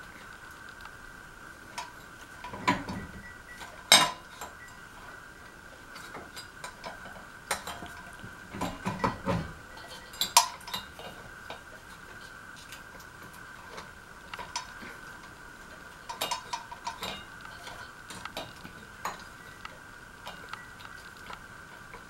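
Small metal parts and tools clinking and clicking as they are handled, in scattered taps with a couple of rustling stretches; the sharpest clack comes about four seconds in. A steady high hum runs underneath.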